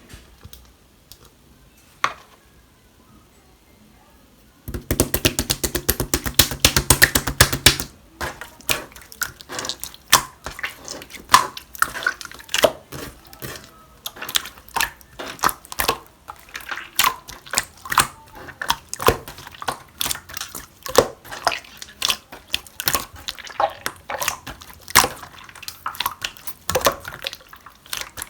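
Clear slime being handled by hand: after a few isolated clicks, a rapid run of quick wet clicks about five seconds in, then irregular sticky clicks and pops, several a second.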